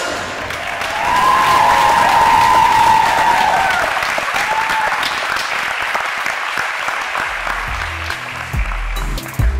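Audience applauding, with a long high cheer about a second in and another brief one later. Music with a heavy bass comes in near the end.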